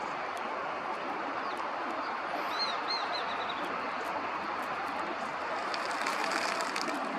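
A raptor, taken for a common kestrel, gives a quick series of about five sharp, high calls about two and a half seconds in, over steady background noise. Near the end there is a rush of wings as a flock of feral pigeons takes off.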